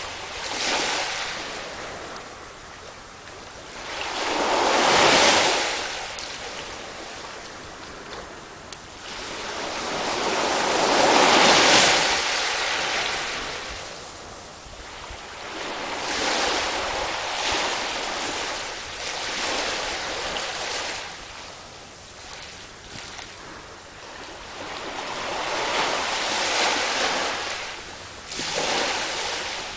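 Sea waves washing in and drawing back, a rushing noise that swells and fades in slow surges every few seconds, the biggest about five and twelve seconds in.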